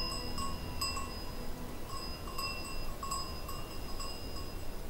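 Bells on grazing goats clinking irregularly, a few light strikes a second, each ringing briefly.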